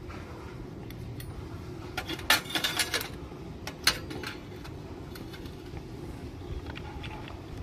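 Miniature stainless steel toy kitchenware clinking: a quick cluster of light metal clinks and rattles about two seconds in as a tiny steel bucket is set on the steel rack, then one sharp clink about a second later and a few faint ones after, over a steady low background noise.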